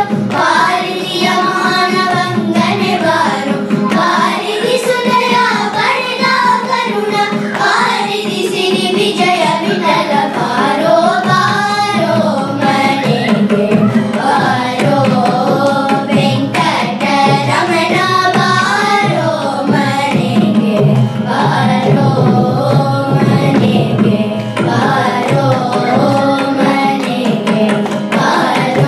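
Carnatic devotional song sung by a group of children, accompanied by a mridangam (double-headed barrel drum) playing steady rhythmic strokes.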